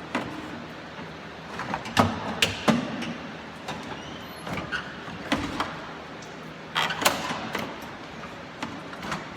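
Irregular knocks, clunks and scrapes of parts being handled at the front of a truck's engine bay, with the loudest knocks about two seconds in and about seven seconds in.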